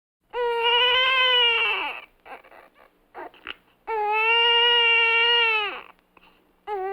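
Infant crying: two long wails of about two seconds each, the second trailing down in pitch at its end, with short catching breaths between them, and a third wail beginning near the end.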